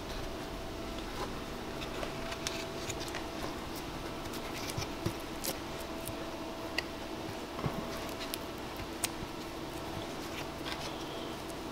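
A knife blade prying and scraping along the seam of a Lexus SC300 tail light, working into the heat-softened sealant between the lens and the plastic housing. It gives scattered small clicks, ticks and scrapes over a steady faint hum.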